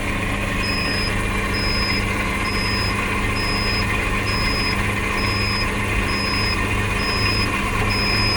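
Egg incubator's steady electric hum with a short high electronic beep repeating a little faster than once a second, starting about half a second in, while its egg-turning is run by hand.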